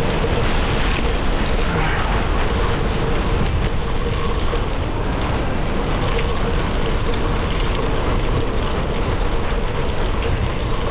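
Gravel bike rolling along a dirt and gravel trail on Panaracer GravelKing SS 38 mm tyres: steady tyre noise and wind rush on the GoPro's microphone, with a faint steady hum underneath.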